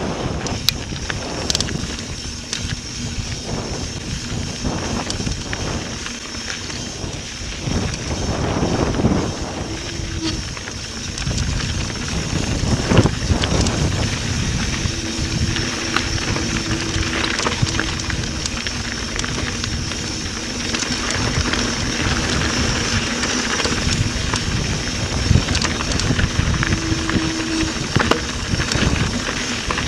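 Mountain bike rolling fast down a dirt and gravel trail: tyres crunching, the bike rattling and knocking over bumps, and wind buffeting the microphone. A faint steady hum comes in about halfway.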